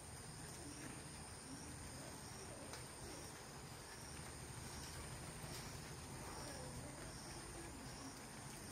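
Faint outdoor ambience of insects: a steady high-pitched buzz, with a short chirp repeating about every half second.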